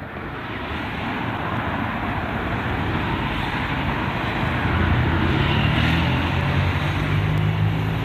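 A vehicle approaching and passing close by: its noise builds steadily over several seconds, with a low engine or motor hum coming in about halfway through.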